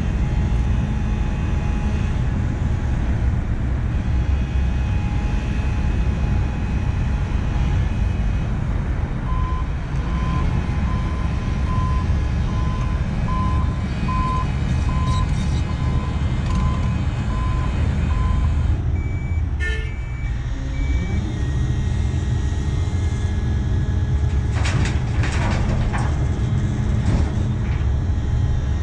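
Heavy diesel engines of a Sany SY335 excavator and a Mercedes-Benz Arocs tipper truck running with a steady deep rumble. About ten seconds in, a reversing alarm beeps roughly once a second for about nine seconds as the truck backs into place. A brief sharp sound follows, then a few short clatters near the end.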